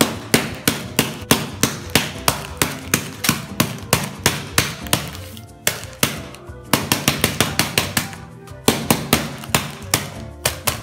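Wooden spoon whacking sealed packs of Oreo cookies on a countertop, crushing the cookies inside, in a steady run of sharp hits about three a second. After a short pause about halfway, the hits come quicker, over background music.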